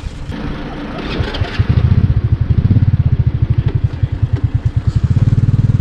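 Small motorcycle engine starting about a second and a half in, then idling with a quick, uneven pulsing beat.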